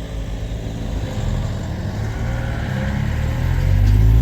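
Car engines pulling away, their pitch slowly rising and growing louder toward the end.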